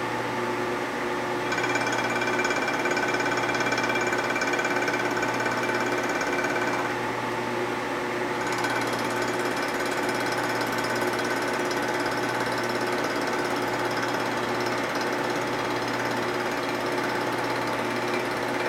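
Vertical milling machine's end mill running and taking a light cut on an aluminium Harley-Davidson knucklehead engine case as the rotary table is hand-cranked, a steady machine sound with a rattly edge. A higher ringing comes in about a second and a half in, drops out around seven seconds and returns shortly after.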